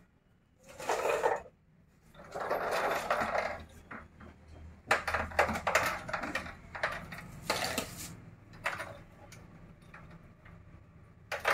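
Small plumbing fittings and hardware clinking and clattering as pieces are handled and dropped together, in several separate bursts of clicks and knocks.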